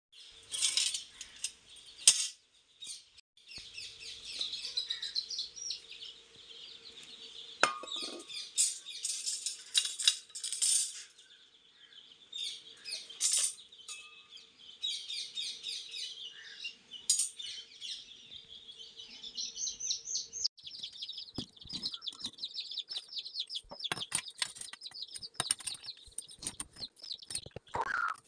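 Small birds chirping and trilling continuously. Scattered clinks and knocks from copper tubing and metal parts being handled are heard, most often in the last few seconds.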